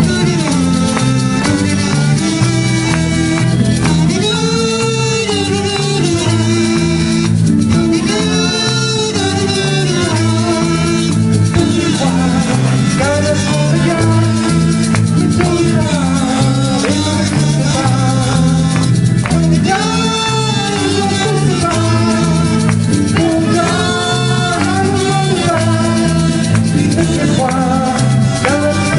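Live band playing a Latin-tinged pop song: strummed acoustic guitar and a rattling shaker, with voices singing in phrases over it.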